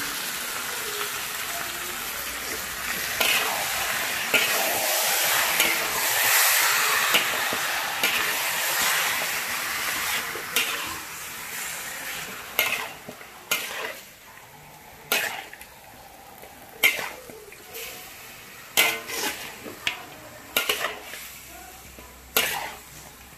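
Raw marinated chicken pieces sizzling as they fry in a hot metal wok. The sizzle is loudest in the first half and then dies down. From about halfway in, a metal spatula scrapes and knocks against the wok about once a second as the chicken is stirred.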